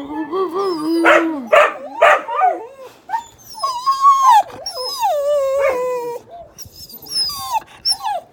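Dogs whining and howling in a string of drawn-out cries that slide up and down in pitch, some low and some high and thin, with short breaks between them. They are vocalising to get their owner's attention.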